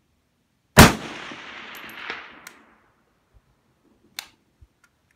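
A single shot from a Molot Vepr AK-47 rifle in 7.62x39, its report echoing and dying away over about two seconds. A short, sharp click follows near the end.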